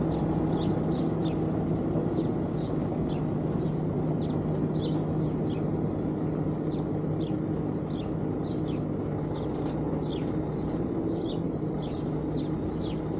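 A heavy diesel engine running with a steady low drone, while small birds chirp rapidly and repeatedly over it.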